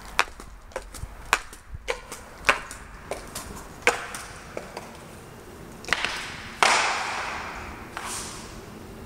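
Footsteps on a bare tile floor, a string of irregular sharp clicks, then a burst of hissing noise about six and a half seconds in that fades away over a second or so.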